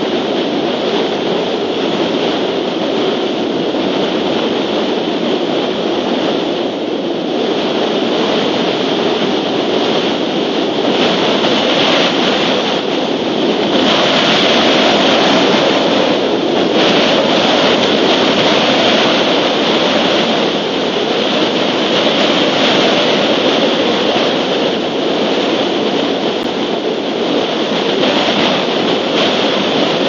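Storm wind buffeting an outdoor microphone: a loud, steady rushing noise that swells with a stronger gust about halfway through.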